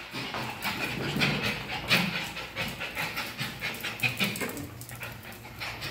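Small dogs' claws clicking rapidly and irregularly on a tiled floor as excited pinschers scurry about.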